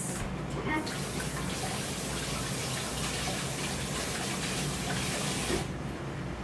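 Kitchen tap running, water pouring steadily as a peeled onion is rinsed under it; it starts just under a second in and is shut off about a second before the end.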